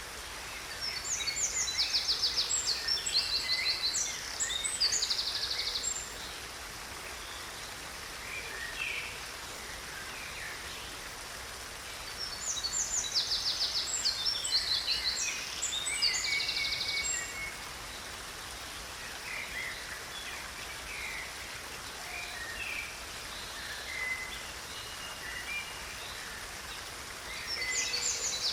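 Steady rush of water in a small stream, with songbirds singing over it. Two bursts of rapid trilled song come about a second in and again around twelve seconds in, with scattered single chirps between them.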